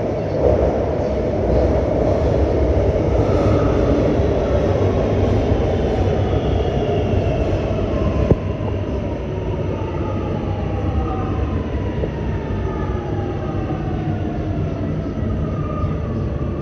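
A six-car metro train arriving in an underground station, with a heavy rumble of wheels and running gear. Several whining tones fall steadily in pitch as the train slows. There is a single sharp click about eight seconds in.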